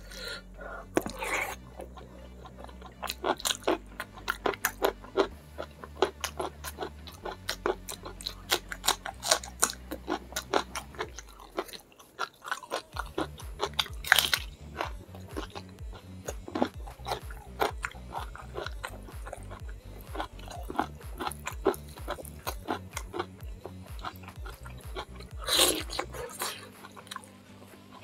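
Close-miked chewing and crunching of food eaten by hand, with crisp bites into raw green vegetables; the loudest crunches come about halfway through and near the end. Background music with a steady low beat plays underneath.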